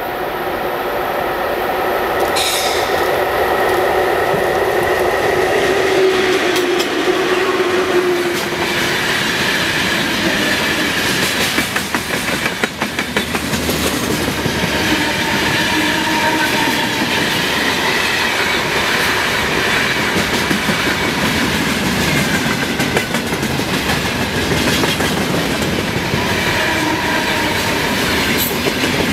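A train running past close by for the whole stretch, its wheels clattering over the rail joints, with steady whining tones over the rumble.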